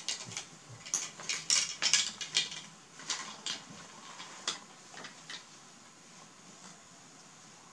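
Hard plastic toys clicking and clattering as they are handled, a quick flurry of clicks in the first three seconds, then only a few, fainter ones.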